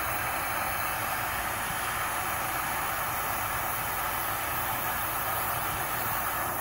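Propane torch burner firing into a small insulated melting furnace, heating a crucible of silver ore and flux: a steady, even hiss.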